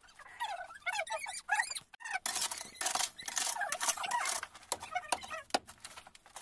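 A digging hoe striking and scraping through loose brick rubble and packed soil, with several sharp knocks of the blade in the second half. High, wavering squeaks come in the first two seconds.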